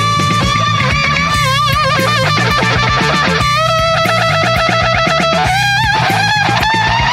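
AI-generated rock music: an electric guitar lead holds notes with wide vibrato, then plays a run of fast repeated notes, over a steady bass backing.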